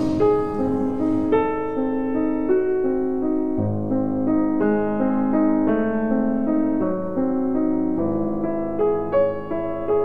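Background music: a slow piano piece, single notes following one another in a gentle melody.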